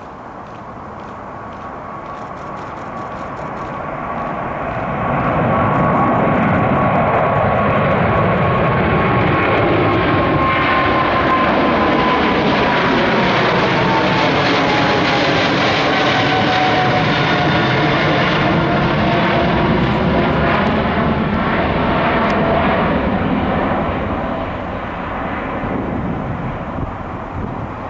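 Boeing 777-300ER's twin GE90-115B turbofans at takeoff thrust as the jet passes. The roar builds over the first few seconds and holds loud, with a sweeping, phasing quality. A fan whine falls in pitch as the aircraft goes by, and the noise eases a little near the end.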